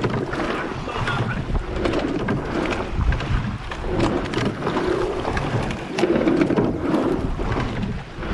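Rowing eight under way at race pace: water rushing along the hull and oar blades, wind buffeting the microphone, and repeated sharp knocks of the oars turning in their gates with the stroke.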